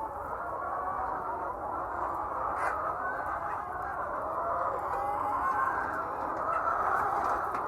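A large flock of laying hens clucking together in a dense, continuous chorus of many overlapping calls.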